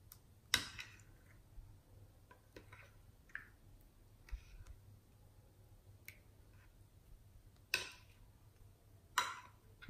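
Thick slime stirred with a thin metal stick in a glass dish, making scattered wet sticky clicks and pops, the sharpest about half a second in and two more near the end.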